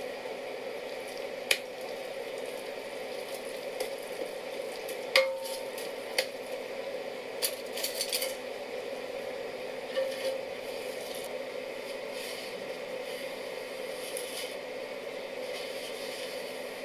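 A cooking pot being stirred while sea lettuce tsukudani simmers. A utensil clinks against the pot a handful of times, with one ringing knock about five seconds in, over a steady hiss.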